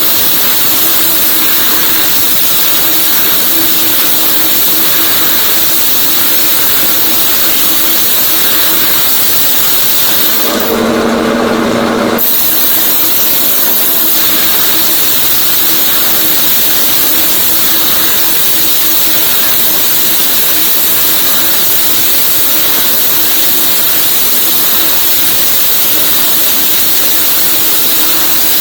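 Sawmill machinery running with a steady, loud hissing noise over a low hum. About ten seconds in, the hiss drops out for a second or two and a lower, pitched tone comes through before the steady noise returns.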